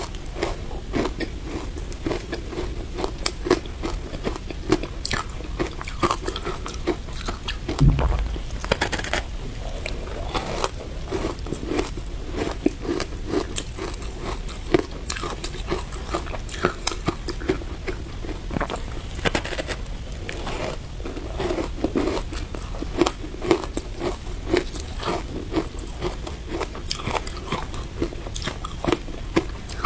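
Close-up crunching and chewing of a block of compressed matcha shaved ice: rapid, dense crackly crunches with bites, and one heavier thump about eight seconds in.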